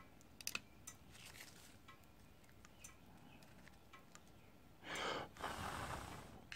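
A few faint clicks in the first second, then about five seconds in a rush of breath, a person breathing out hard for about a second and a half.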